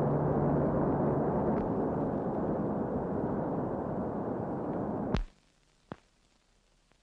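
Steady low roaring rumble of the erupting Vesuvius volcano, with a brief low hum near the start. It cuts off abruptly about five seconds in, leaving near silence with one faint click.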